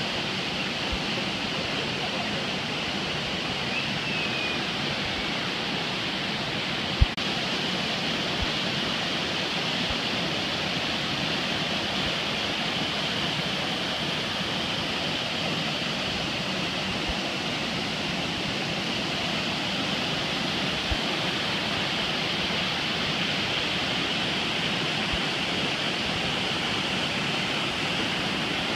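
Waterfall pouring into a rock plunge pool: a steady, unbroken rush of falling water. A single sharp knock sounds about seven seconds in.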